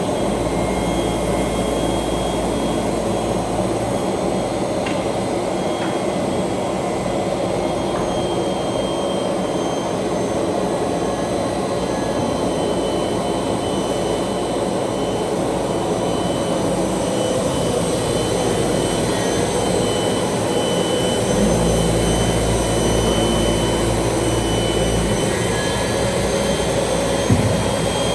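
ROBA Fentech profile sanding machine running steadily, its motors, sanding heads and vacuum transport making a continuous mechanical noise with a few steady tones. A deeper low hum comes in for the first few seconds and again for a few seconds about three-quarters of the way through, and there is a single knock near the end.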